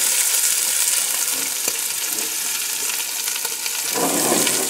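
Chopped onion and celery sizzling in a frying pan in the chicken drippings over moderate heat, a steady crackling hiss. Near the end the sizzle swells into a louder, rougher burst.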